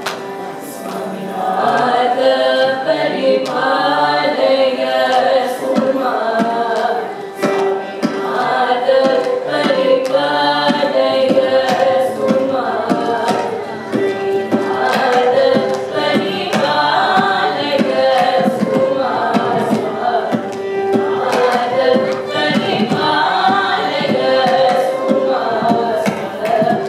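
A small group of voices singing a Carnatic song together over a steady drone, with percussion strokes keeping the rhythm.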